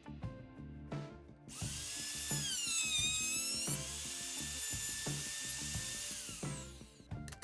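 An electric power tool motor starts about a second and a half in and runs with a high whine for about five seconds. Its pitch dips and recovers, then holds steady and winds down near the end, over background music.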